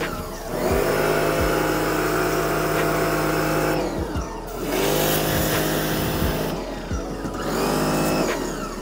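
Pressure washer motor and pump running in three bursts as the trigger is squeezed and released, spinning up at each start and winding down at each stop, with the water spray hissing.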